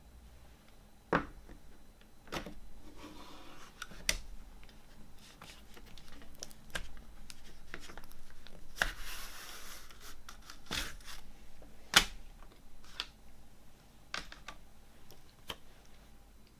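Handling a CD and its plastic packaging: a series of sharp clicks and taps, the loudest about a second in and near twelve seconds, with two short stretches of plastic rustling or tearing about three and nine seconds in.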